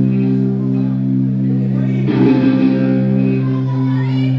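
Live rock band playing: electric guitar chords ring out over bass. A fresh strummed attack comes about two seconds in, and a rising slide comes near the end.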